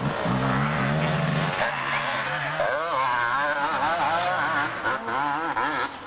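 A pack of 250cc motocross bikes, their two-stroke engines revving up and down together, many pitches rising and falling over one another from about a second and a half in.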